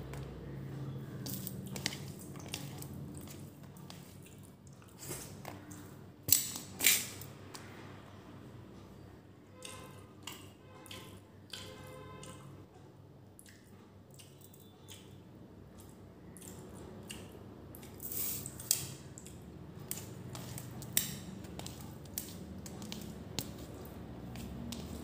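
Close-up hand-eating sounds: wet chewing and mouth smacks on rice and beef curry, with fingers squishing and mixing rice on a steel plate. Many short sharp clicks, the loudest two about six and seven seconds in.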